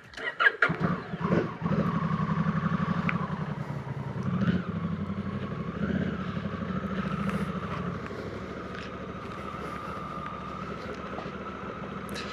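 Honda Africa Twin CRF1100L parallel-twin engine idling with a steady pulsing beat, dropping quieter about eight seconds in.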